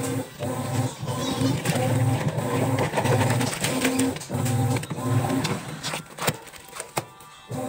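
Top-loading washing machine agitating a sudsy load, its motor humming in short strokes a little under once a second, with water sloshing and splashing as a hand stirs the clothes. The hum pauses about six seconds in, leaving clicks and splashes.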